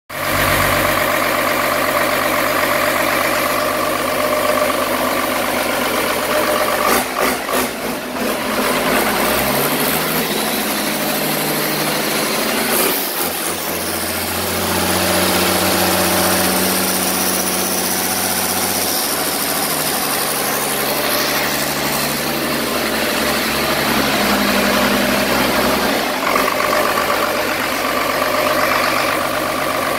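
A 5.9-litre Cummins inline-six turbodiesel running on a test stand during its break-in run, its speed shifting up and down several times.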